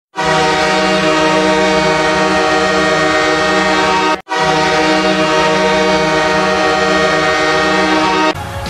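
Hockey arena goal horn, the Detroit Red Wings horn, sounding two long blasts of about four seconds each with a brief break between them. Music starts just before the end.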